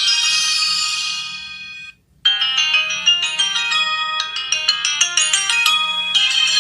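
LG mobile phone ringtones: one ringtone melody fades out, there is a brief gap about two seconds in, and then another ringtone starts with a quick run of short, bright notes.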